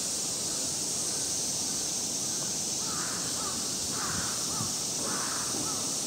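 A crow cawing three times, about a second apart, over a steady high hiss.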